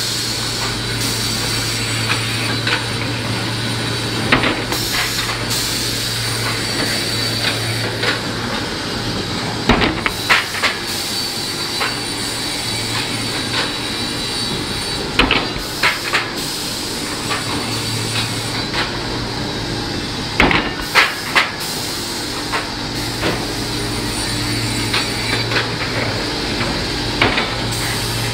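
Film-faced plywood DD saw line running: a steady electric motor hum under a noise, with scattered sharp knocks and clacks, some in quick clusters of two or three.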